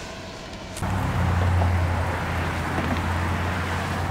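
Wind and road noise from a moving bicycle: a steady rushing haze with a low rumble that starts suddenly about a second in.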